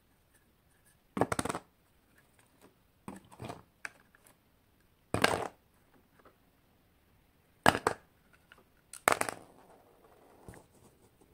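Hands handling a hard plastic bottle cap and setting it against a plastic tube on a Lego stand: a handful of short bursts of plastic clicking and rubbing, separated by pauses.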